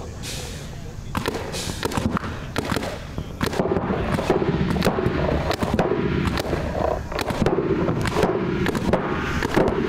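Paintball markers firing: sharp pops in quick, irregular strings.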